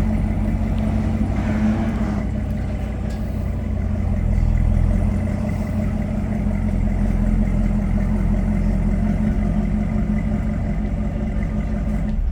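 Chevrolet Camaro ZL1's supercharged 6.2-litre V8 running at a low, steady idle, swelling slightly about four seconds in.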